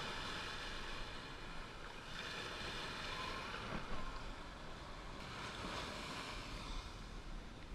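Small surf washing up a sandy beach, a steady rush of water that swells once midway, with wind rumbling on the microphone.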